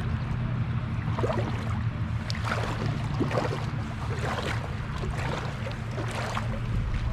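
Water splashing and sloshing around boots as someone wades through a shallow creek, in irregular strokes about once a second over a steady low rumble.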